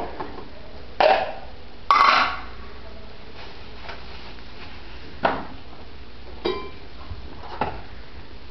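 Ceramic tiles knocking and clinking as they are handled and set down: about five separate hard knocks, the loudest and longest about two seconds in, some with a short ring.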